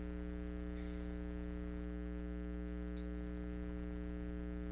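Steady electrical mains hum, a buzzing stack of even tones that does not change, with a few faint ticks.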